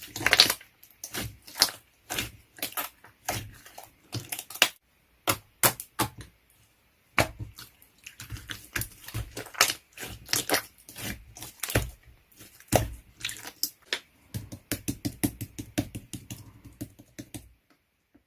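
Many rapid, irregular clicks and taps, one after another, that stop abruptly shortly before the end.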